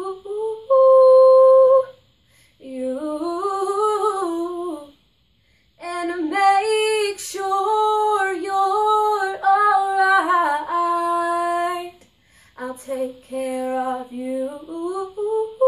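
A young woman singing a cappella in a slow ballad style, in long held phrases broken by short pauses for breath.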